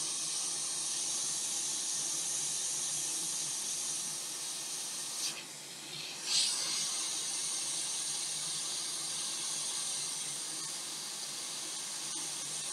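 Hot-air rework station blowing a steady hiss of air while a replacement capacitor is soldered onto a laptop logic board. The airflow drops away briefly about five seconds in, then comes back.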